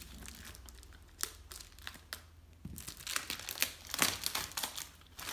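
Plastic packaging crinkling and crackling as it is cut and pulled open, in scattered crackles at first that grow into a dense run of crackles about three seconds in.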